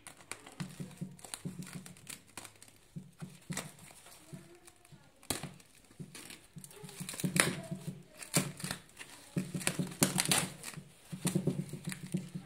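Brown packing tape on a parcel being slit with a utility knife and peeled back, crackling and crinkling in irregular bursts that are loudest a little past the middle and again near the end.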